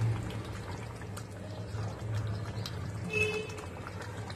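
Thick prawn masala gravy boiling in an aluminium pot, with soft bubbling and popping over a steady low hum. A last prawn is set into it at the start.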